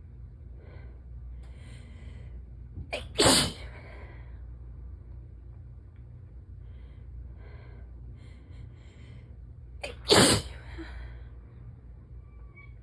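Two strong sneezes from a person sick with a cold-like illness, about seven seconds apart. Each comes after a few faint, catching breaths.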